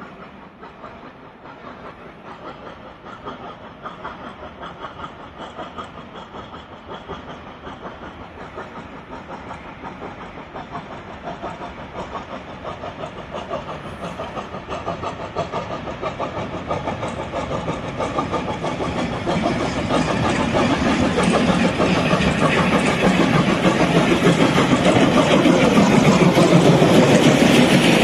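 FS 740 2-8-0 steam locomotive working a train, its exhaust beats and running gear growing steadily louder as it approaches and comes alongside near the end.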